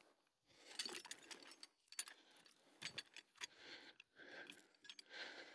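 Faint metal clinking and rattling, a run of irregular sharp clicks, from a winch hook and rigging being handled while the line is drawn out by hand.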